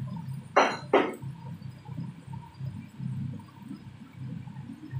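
Steady low rumble from the gas hob and range hood under a wok of frying noodles, with two short, sharp knocks close together about half a second in.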